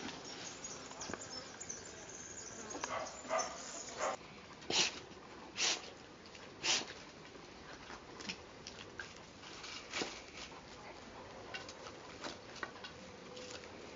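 Two young puppies tussling over a stiff-bristled broom on stone paving: scuffling and scratching, with three louder short sounds about five to seven seconds in.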